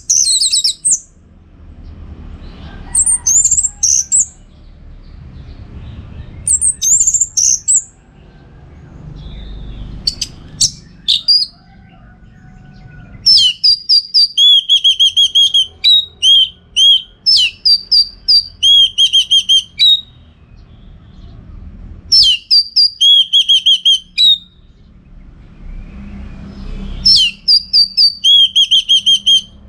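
Orange-headed thrush singing in separate high-pitched phrases with pauses between them. Short phrases come in the first dozen seconds, then longer runs of quickly repeated whistled notes follow, three times.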